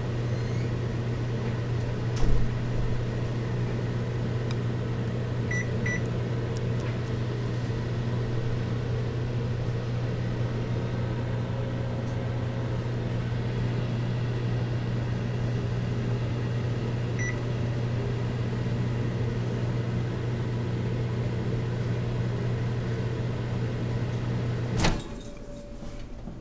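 Microwave oven running with a steady low hum, with a short knock about two seconds in and a few faint ticks. Near the end the hum stops abruptly with a click as the oven shuts off.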